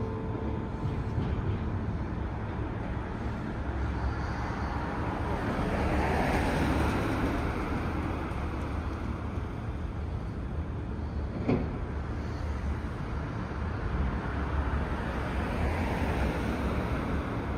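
Street traffic: a steady hiss of passing vehicles that swells as one goes by about six seconds in, with a single sharp knock or clack about eleven and a half seconds in.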